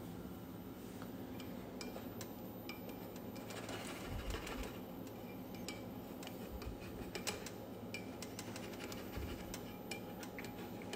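Eggs and buttered bread cooking in a nonstick frying pan over a very low flame, giving a faint, sparse crackle of small irregular ticks.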